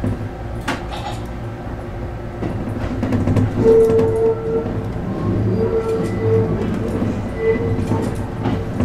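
ET127 series electric train rolling slowly through yard points, heard from inside the front of the car. A steady low rumble runs under scattered clicks of wheels over rail joints. About halfway through, a mid-pitched whine starts and keeps coming and going.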